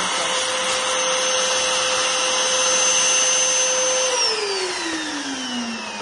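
Flama 1667FL water-filter vacuum cleaner running in blower mode, with its hose on the exhaust outlet: a steady motor whine over rushing air. About four seconds in, the motor slows and its whine falls steadily in pitch.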